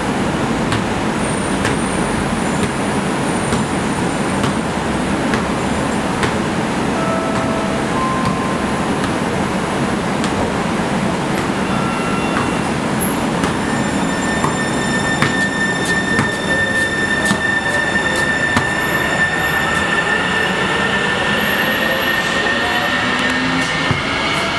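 Kinki Sharyo light rail train standing at a station platform with a steady rushing noise, then pulling away a little past halfway. Its electric traction drive whines, the pitch rising as it gathers speed.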